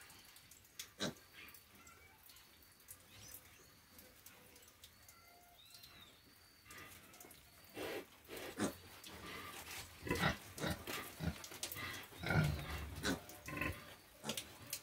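A sow and her piglets grunting and snuffling in short, irregular bursts, mostly in the second half. The first half is quiet apart from a few faint clicks.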